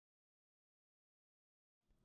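Near silence: an empty digital track with no sound.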